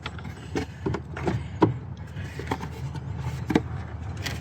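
Irregular light clicks and knocks of plastic air-intake parts, the air filter box and its fittings, being handled and fitted back into place, over a steady low hum.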